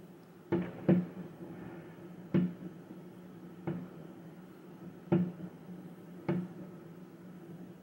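Distant aerial fireworks going off, heard muffled from inside a hotel room: six dull thumps at uneven intervals over a steady low hum of room tone.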